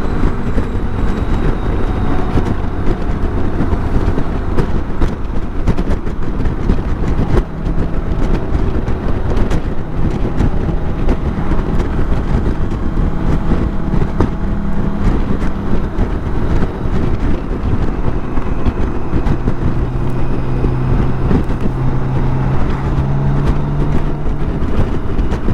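BMW K1600 GTL inline-six motorcycle engine running steadily under way, mixed with constant road noise, its low engine note shifting in pitch a few times as the throttle changes.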